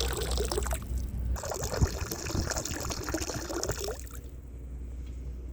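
Stream of water splashing out of a boat's overboard discharge during winterizing, the water still clear as antifreeze is pumped through the system. It breaks off briefly about a second in and falls away near the end, over a low steady hum.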